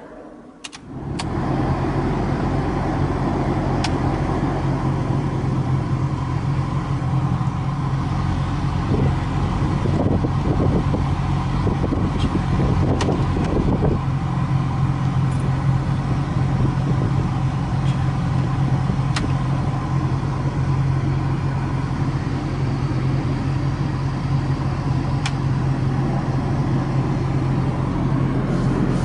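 A 1992 Honda Prelude starting up about a second in and then running steadily at idle, with a few faint clicks over it, likely the heater control panel's buttons being pressed.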